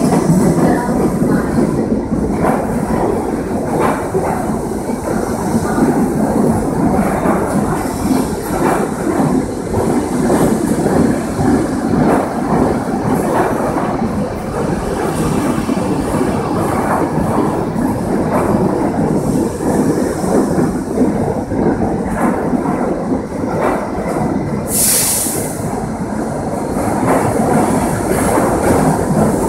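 R68A subway train rolling past along the platform as it pulls into the station: a loud, steady rumble and rattle of steel wheels on the rails. A brief high hiss comes near the end.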